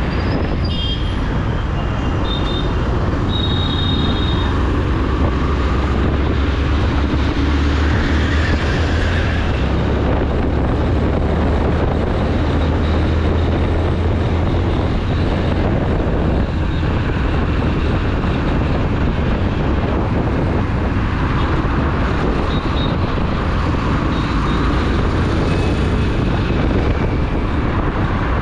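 Steady, heavy wind rumble on the microphone over road and traffic noise while riding a two-wheeler through city traffic. A few short high-pitched tones sound in the first few seconds.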